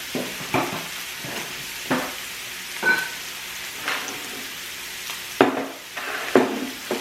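Pork belly (samgyeopsal) sizzling steadily on a tabletop Korean barbecue grill, with several sharp clacks of utensils, the loudest about five and a half seconds in.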